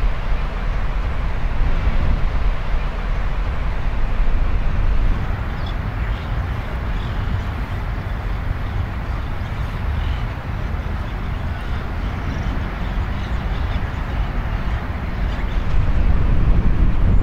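Steady outdoor ambient noise with a low rumble of wind on the microphone.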